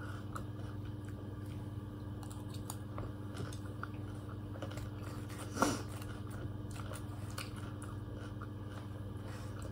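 A person chewing food, with faint small clicks of plastic forks on a plate over a steady low room hum; one short louder mouth sound about five and a half seconds in.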